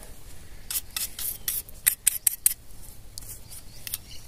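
Scratchy scraping and rubbing in dirt: a run of short, irregular strokes as a small buried object is dug out and handled.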